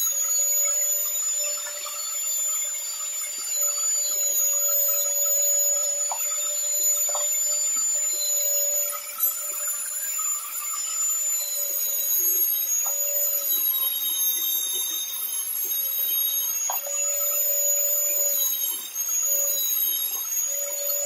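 Small electric motor spinning a wire wheel brush with a steady high whine, while a rusty steel shear blade is pressed against the bristles at times, scraping off rust. A few light clicks come through.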